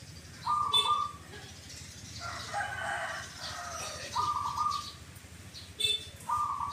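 Caged zebra doves (perkutut) calling: short clipped 'kuk' notes in three groups, about a second in, about four seconds in and near the end. Another bird gives a longer, rougher call in the middle.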